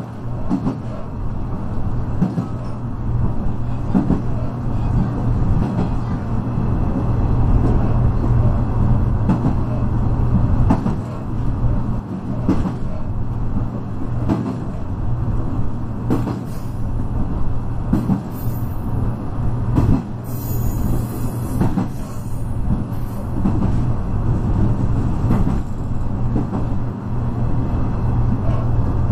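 KiHa 121 diesel railcar running along the line: a steady low engine drone with the wheels clicking over rail joints every second or two. A brief high hiss comes about two-thirds of the way through.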